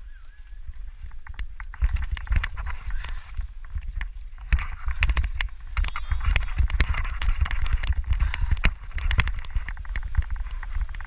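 Mountain bike rolling fast down a dirt trail: tyres hissing over the dirt, with many quick rattling clicks from the bike jolting over bumps, and a heavy wind rumble on the microphone. It gets busier and louder about two seconds in, and again about halfway through.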